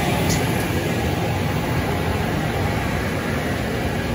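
Automatic car wash tunnel equipment running, a steady hiss over a low rumble.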